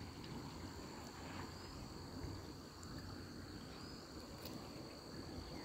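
Faint, steady high-pitched insect drone, cricket-like, over a low even background rumble.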